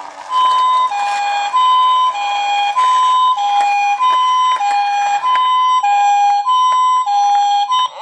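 Toy ambulance's electronic two-tone siren, alternating a higher and a lower tone in a steady hi-lo pattern, a little over one high-low pair a second.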